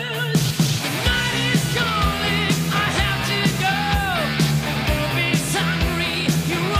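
Hard rock music: distorted electric guitars and a steady drum beat, with singing.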